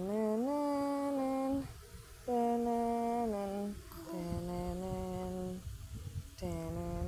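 A woman humming a slow tune in about four long held notes with short breaks between them.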